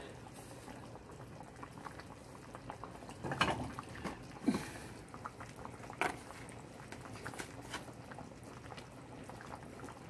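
Food bubbling and simmering in a cooking pot, a steady crackle of small pops, with a few louder knocks about three and a half, four and a half and six seconds in.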